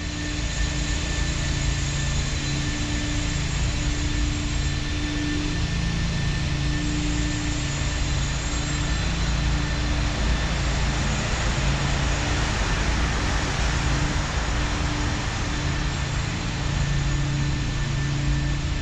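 Steady road-traffic noise carried into a concrete pedestrian underpass, with a low hum that swells and fades every few seconds as vehicles pass.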